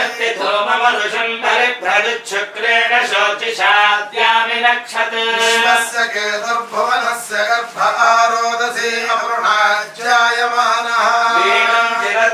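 A man's voice chanting Sanskrit puja mantras in a continuous, melodic recitation.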